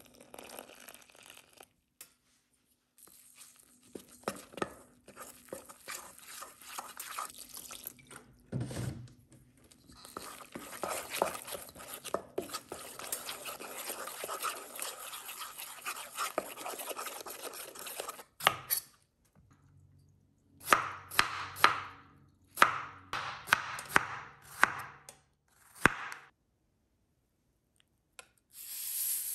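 Kitchen food preparation: a knife chopping on a cutting board, in runs of quick strokes and then a row of separate sharp knocks, with near-silent gaps between clips. A steady hiss starts just before the end.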